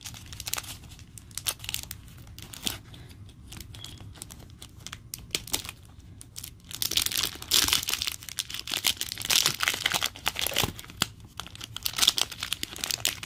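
Clear plastic wrapping crinkling and being pulled open off a set of cards: scattered light crackles at first, then a dense run of loud crinkling from about seven seconds in.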